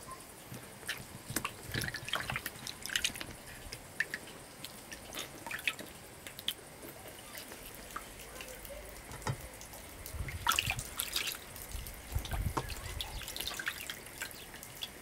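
Water dripping and splashing as whole eggplants are lifted out of a metal basin of water and set into a bowl. Irregular drips and small splashes, with a few soft knocks.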